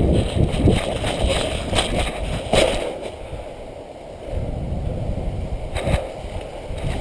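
A player moving on foot through woodland: irregular footsteps and rustling through leaves and brush, over a low rumble. Two sharper clicks stand out, about two and a half and six seconds in.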